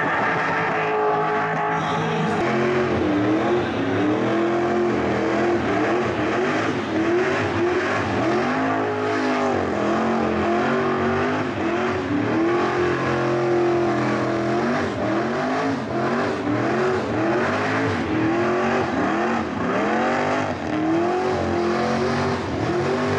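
Car engines revving hard during burnouts, the pitch swinging up and down in repeated surges about once a second, over the steady screech and hiss of rear tyres spinning on the bitumen.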